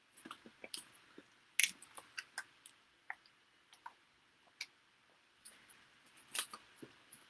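Person handling and drinking from a clear plastic bottle: a string of small clicks, crinkles and mouth sounds, with the sharpest click about one and a half seconds in and a brief louder rustle near the end.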